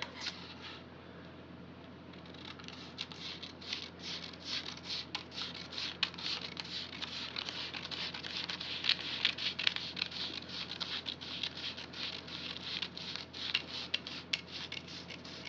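Scissors cutting through pattern paper: rapid, continuous snipping with the paper rasping and crinkling along the blades, starting about two seconds in.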